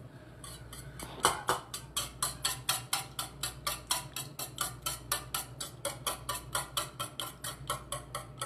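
Wire whisk beating raw eggs in a stainless steel bowl, clicking against the metal in a steady rhythm of about four to five strokes a second, starting about half a second in.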